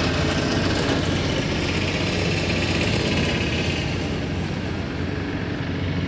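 Heavy diesel engines of earthmoving machines running steadily, a low, even engine drone with no breaks.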